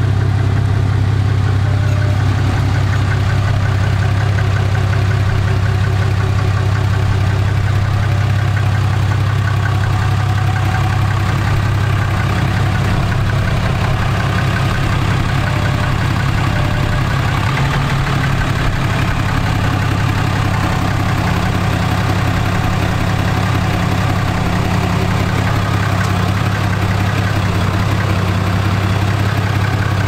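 Ram pickup truck's engine idling steadily as the truck creeps backwards at low speed, a deep, even hum.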